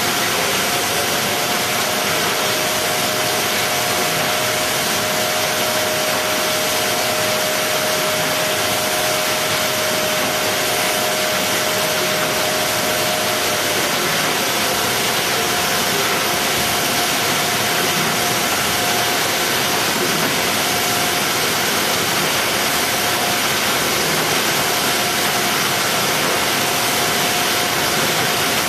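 Steady machinery noise around a robotic box-palletizing cell: an even, loud hiss with faint steady hum tones, one of which fades out about halfway through. No distinct box drops or knocks stand out.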